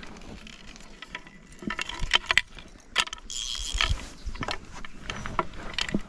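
Fly reel's ratchet clicking in irregular runs as line is reeled in and given to a hooked trout, with one longer rasping run a little past the middle.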